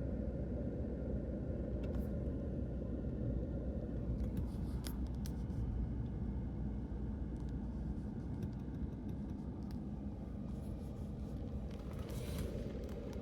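Steady low road and engine noise of a car driving, heard from inside the cabin, with a few faint ticks.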